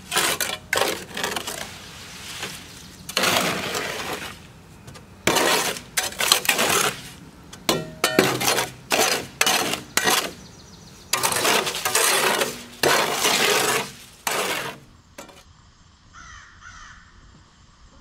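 Wet concrete scraped and slid out of a tipped metal wheelbarrow into a post footing form, in repeated loud, gritty scraping bursts; the sound drops away about three seconds before the end.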